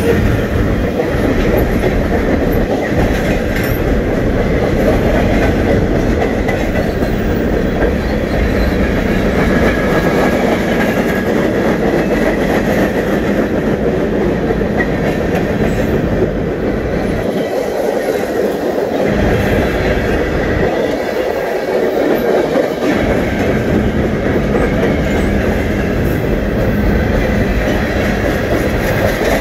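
Cars of a Canadian National freight train rolling past close by: a steady loud rumble and rattle of steel wheels on the rails. The low rumble eases briefly twice about two-thirds of the way through.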